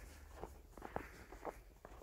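Footsteps crunching in fresh snow, several soft crunches at a walking pace.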